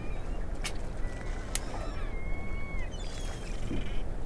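Seagulls calling over the water: thin drawn-out cries, one held steady and then dropping away in the middle, over a steady low rumble, with two sharp clicks in the first two seconds.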